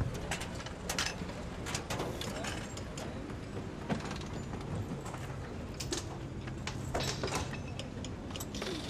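Scattered sharp metallic clicks and clanks of hands and tools working at a race car's wheel, over a steady low drone.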